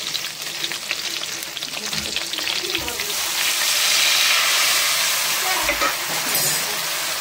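Spices sizzling in hot oil in a pan with fried chillies and fenugreek seeds, stirred with a spoon. The sizzle swells and grows louder about three and a half seconds in, as the turmeric and chilli powder mixed with water goes into the oil.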